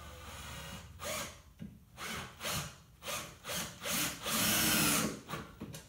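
A series of short scraping strokes, about two a second from about a second in, ending in one longer, louder stroke near the end: a tool being worked back and forth against a workpiece.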